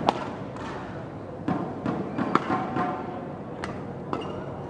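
Badminton rally: sharp racket strikes on the shuttlecock, roughly one a second, over the steady hum of an indoor arena.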